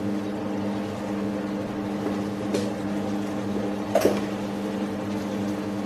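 Ribeye steak sizzling in butter in a frying pan over a steady electrical hum. A metal spoon clicks against the pan about four seconds in as the steak is basted.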